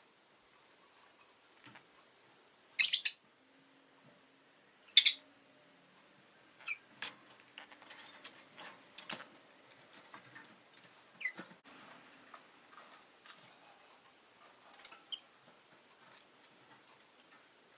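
Rosy-faced lovebirds calling: two loud, short, shrill chirps about three and five seconds in, followed by scattered soft clicks and taps and a few fainter chirps.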